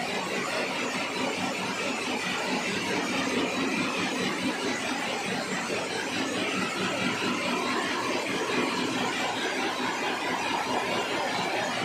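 Somet SM93 rapier weaving loom running, a steady mechanical clatter, with other looms running in the same shed behind it.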